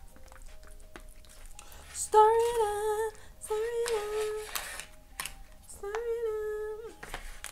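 A woman humming three held notes of about a second each while she eats, with light clicks of a fork in a foil tray between them.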